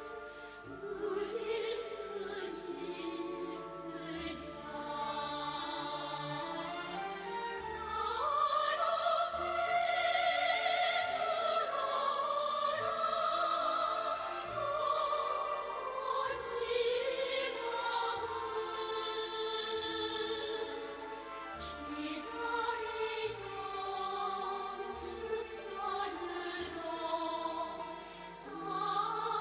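Orchestral music with operatic singing: sustained, vibrato-laden voices over strings, in the style of a Korean revolutionary opera.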